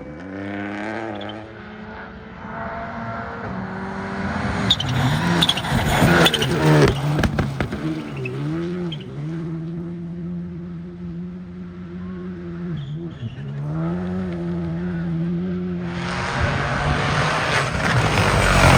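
Rally car engine running hard at speed: its pitch climbs, it passes loudly, then it holds a high steady note broken by brief drops as the driver shifts or lifts. Near the end comes a louder rushing pass with tyre noise.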